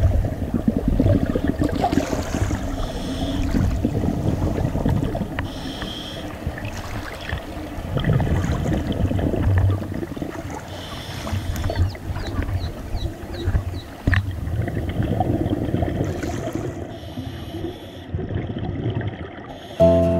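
Underwater sound from scuba divers: a low bubbling rumble of exhaled air, with a short hiss recurring every few seconds. Music begins right at the end.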